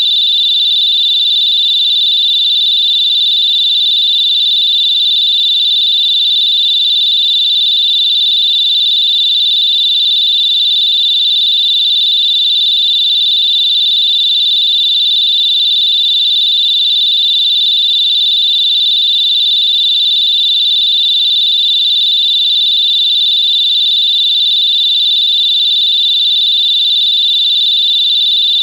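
Electronic whistle giving one steady, high-pitched tone without a break.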